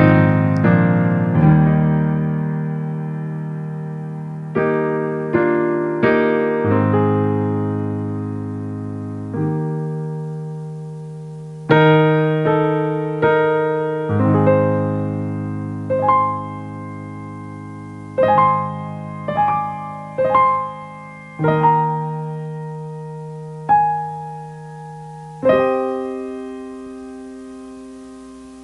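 Piano playing slow, sustained chords, each struck and left to ring out and fade, with short runs of quicker notes between them.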